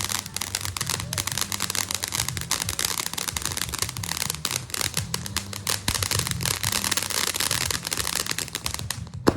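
Firework crackling: a fast, dense stream of small sharp pops that keeps up steadily and cuts off abruptly near the end.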